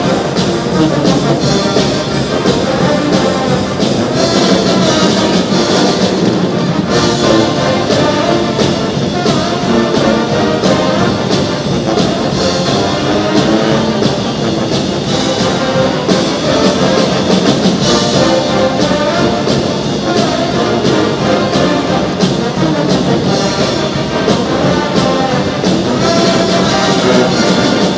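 Brass-led music with trumpets and trombones, playing loudly throughout.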